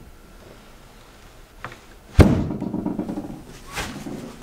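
Carpeted 3/4-inch plywood hatch lid on a boat's bass deck dropped shut onto its wooden frame: a small click, then one loud thud about two seconds in that rings on briefly, and a softer knock near the end.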